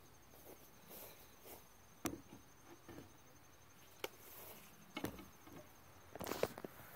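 An insect's steady, high, pulsing trill with a few faint sharp clicks, then footsteps in grass coming up close near the end.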